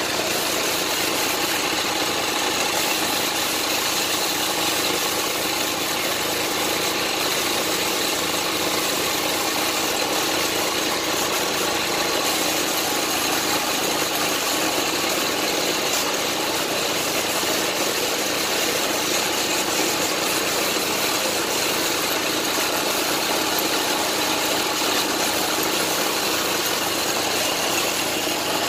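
Steady, unbroken hiss of a compressed-air paint spray gun, with the air compressor feeding it running underneath.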